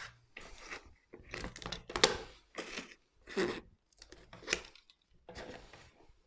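Self-adhesive vinyl film rustling and crinkling in short bursts as the covered board and the utility knife and squeegee are handled, with a few light knocks.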